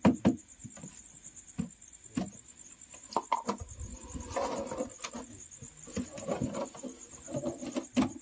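A cricket chirping steadily in a high, fast-pulsing trill, with scattered knocks and crinkles of a plastic water jar being handled as a lid is fitted on it.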